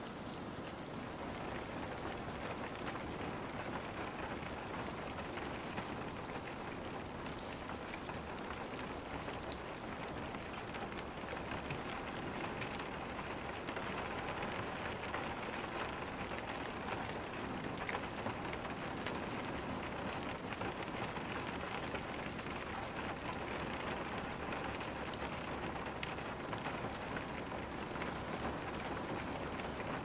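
Steady rainstorm: rain falling in an even hiss, dotted with many taps of individual drops.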